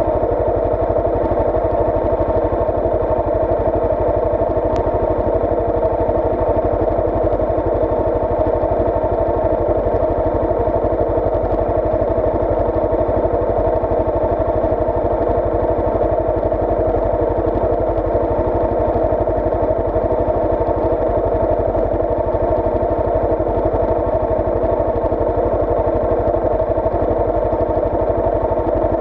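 An engine idling steadily at rest, with an even, fast pulse that does not change.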